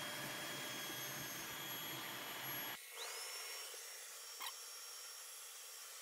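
Tineco Floor One S3 cordless wet-dry vacuum running in its dock during a self-cleaning cycle: a steady motor and suction rush that stops abruptly about three seconds in. A quieter high whine then rises and holds, with a single click.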